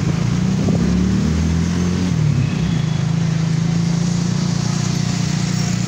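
Street traffic: motorcycle and car engines running steadily, with one engine's note rising and then falling about two seconds in.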